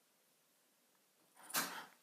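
A brief rustling scrape from hands working the Play-Doh and its plastic mold, starting about a second and a half in after near silence.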